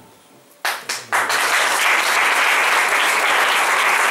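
Audience applauding: a few scattered claps, then steady applause from about a second in.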